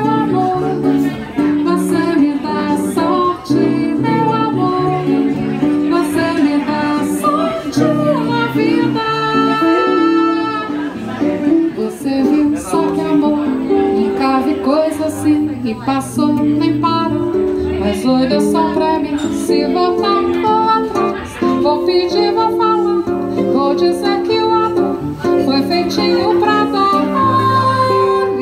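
A woman singing live, accompanied by guitars: an archtop electric guitar and an acoustic guitar.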